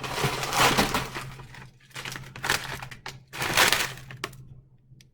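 Food containers and packaging clattering and rustling as fridge contents are handled and sorted. A noisy burst lasts about a second and a half, another comes about three and a half seconds in, and a few short clicks follow.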